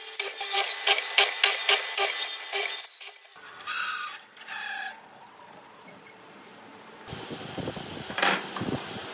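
Woodworking hand tool rasping or sawing on wood in regular strokes, about three or four a second, for about three seconds. The sound then changes abruptly to two short noisy bursts and quieter workshop noise, with a sharp knock near the end.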